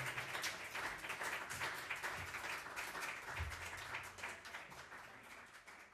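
Audience applauding in a small room, many hands clapping and slowly dying away.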